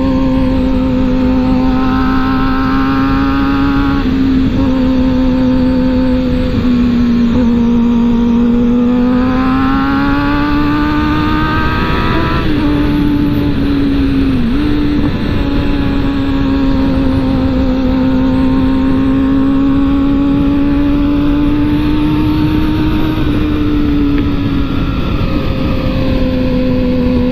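Sport motorcycle engine pulling at steady cruising revs under wind rush, heard from the rider's own bike. The engine note climbs for several seconds and drops back sharply about twelve seconds in, with smaller dips around four and fourteen seconds.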